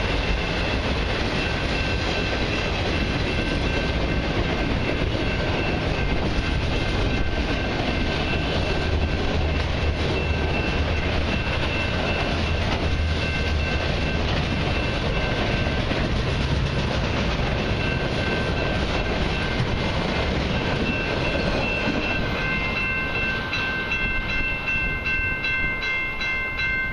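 Long freight train of autorack cars rolling past a level crossing: the steady rumble and clatter of steel wheels on the rails, with the crossing's warning bell ringing throughout. Near the end the last car passes, the rumble drops away and the bell rings on alone.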